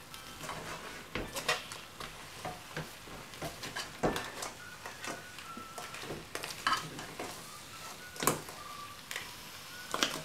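A metal spoon stirring crab pieces in their shells through thick masala in a metal pan: irregular clicks and knocks of spoon on shell and pan, over a faint sizzle of frying. The loudest knocks come about four and eight seconds in.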